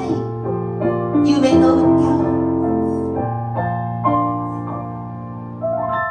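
Grand piano playing slow, sustained chords that change about once a second, gradually getting quieter, with a single new chord struck near the end and left ringing.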